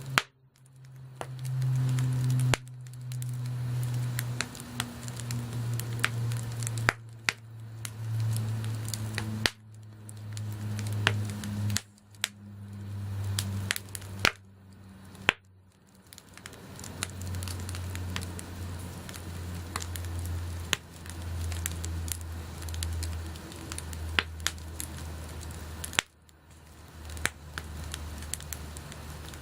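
Wood bonfire burning, with frequent sharp crackles and pops over a low steady hum; the sound cuts out abruptly several times.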